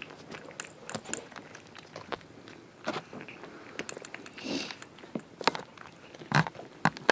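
Scattered clicks, knocks and short rustles of fabric: a camera being handled and moved against a blanket while a hand strokes a kitten.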